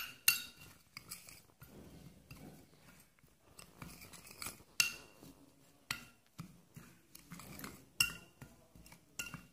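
A spoon stirring ground almonds, cardamom, black pepper and rock sugar in a vessel: irregular sharp clinks against the vessel, with soft scraping in between.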